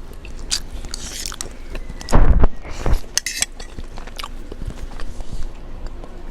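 Close-up eating sounds: mouth chewing and biting food, with wet smacks and small clicks, and one louder low thump about two seconds in.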